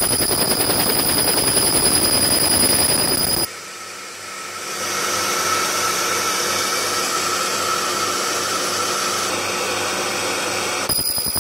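Handheld pulsed laser rust cleaner firing on rusty steel: a rapid, even crackling buzz of laser pulses with a high whine. It cuts off suddenly about three and a half seconds in, giving way to a quieter steady machine whir, and the rapid pulsing starts again near the end.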